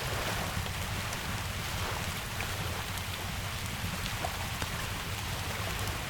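Steady rain falling, with a low rumble underneath and scattered faint pops and crackles of a wood fire.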